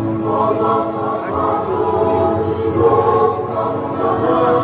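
Recorded choir singing played over loudspeakers, long sustained sung notes with accompaniment, part of the anthem or hymn of an opening ceremony.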